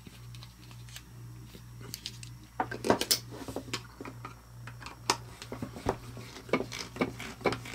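Needle-nose clamping pliers and small metal hardware clicking and clattering as lock nuts are fitted onto bolts in a plastic part. The clicks start a couple of seconds in, over a steady low hum.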